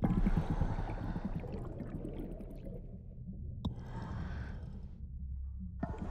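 Scuba diver breathing through the regulator of a full-face dive mask underwater: exhaled bubbles gurgle out in three bursts, one at once, one about three and a half seconds in and one near the end, over a steady low underwater rumble.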